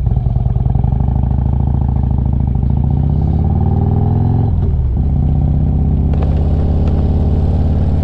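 Harley-Davidson Street Glide's V-twin engine pulling away and accelerating, its pitch rising, then dropping at a gear change about four and a half seconds in before it runs steadily at road speed.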